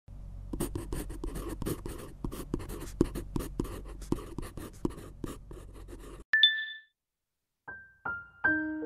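Pen scratching on paper as if writing, several quick strokes a second for about six seconds. A single bright chime follows, and then a few piano notes begin near the end.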